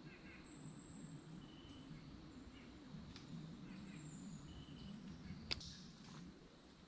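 Quiet woodland ambience: faint short bird chirps over a low steady background, with a couple of small sharp clicks, one about three seconds in and one near the end.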